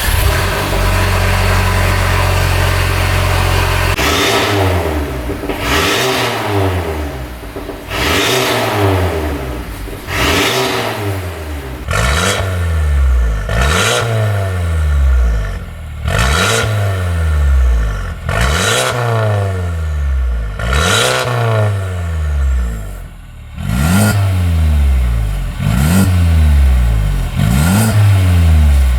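Mercedes-Benz A250 (W177) 2.0-litre turbocharged four-cylinder with an aftermarket Secretflow downpipe. It runs steadily for about four seconds, then is revved about a dozen times, roughly every two seconds, each blip rising quickly and falling back. The exhaust gives its farting note.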